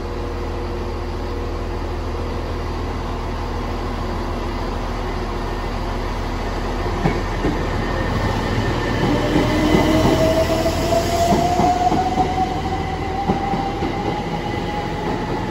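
Southeastern Class 375 Electrostar electric multiple unit pulling away and accelerating past, with a whine from its traction motors that rises slowly in pitch from about halfway through. The wheels click over rail joints as the carriages go by, loudest about two-thirds of the way in.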